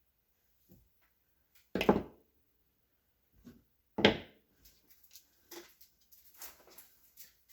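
Objects being handled and set down during a repair: two louder clunks about two seconds apart, followed by lighter clicks and rustling.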